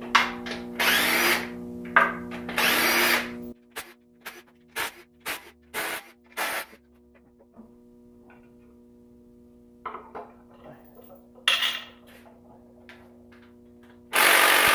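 Cordless drill spinning bolts out of the front of an LS V8 engine. There are two runs of about a second each, then a string of short blips, a few light clicks, and a longer run near the end.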